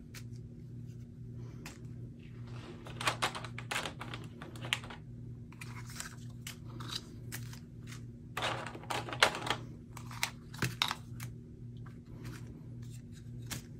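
Small plastic bags of resin diamond-painting drills being picked up and shuffled by hand: crinkling plastic and the little drills inside rattling, in irregular clusters of clicks. A low steady hum runs underneath.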